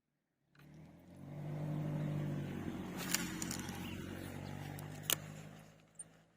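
A motor vehicle's engine passing by: a low engine hum that swells up about half a second in, holds, and fades away near the end, with two sharp clicks partway through.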